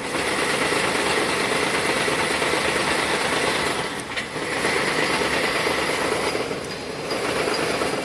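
Wire harness braiding machine running, its bobbin carriers travelling around the braiding track; it starts suddenly, dips briefly about halfway and again near the end, then cuts off.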